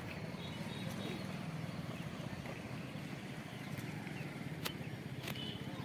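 Footsteps crunching on railway track ballast stones, with a couple of sharper clicks near the end.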